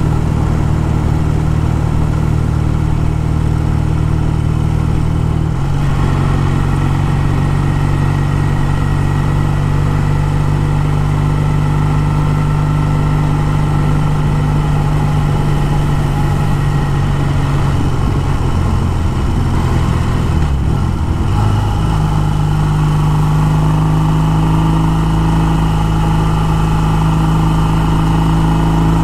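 1956 Triumph T110's 650 cc parallel-twin engine running steadily under way. Its note drops slightly about six seconds in, dips around twenty seconds in and then rises again.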